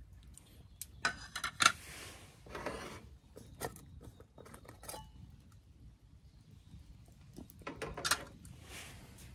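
Camp cookware and utensils clinking and clattering, a quick run of sharp clinks about a second in and another cluster near the end, with brief scraping between.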